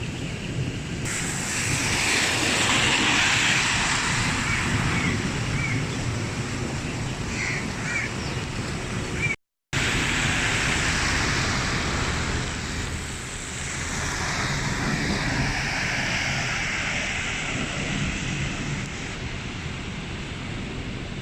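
Sea surf washing onto the beach, with wind buffeting the microphone; the wash swells up twice, about two seconds in and again past the middle. The sound cuts out for a moment near the middle.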